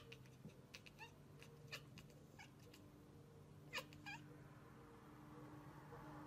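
Domestic cat chirping: a string of short, faint chirps, each falling in pitch, with two clearer ones about four seconds in.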